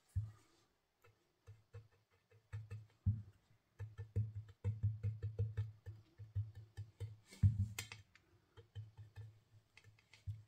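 Ink blending brush dabbing ink onto small paper die-cut leaves on a craft mat: runs of quick soft taps, several a second, with light clicks, and a louder brushing sweep about three-quarters of the way through.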